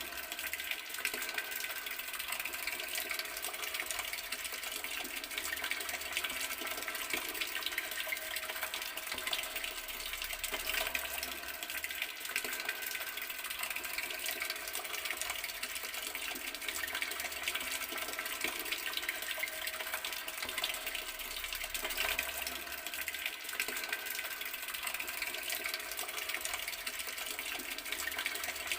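Water running steadily from an outdoor garden tap, an even splashing stream.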